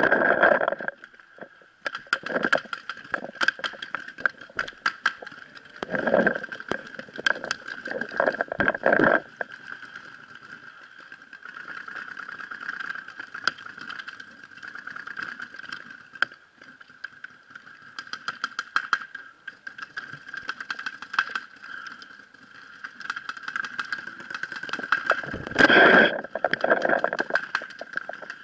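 Paintball markers firing in rapid strings of sharp pops, with louder, fuller bursts near the start, about a third of the way in, and near the end, over a steady high tone.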